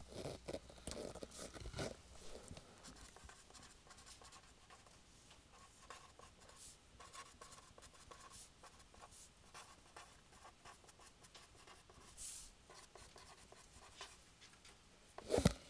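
Someone writing by hand: faint, irregular pen scratches, busiest in the first couple of seconds. A sharp knock comes near the end.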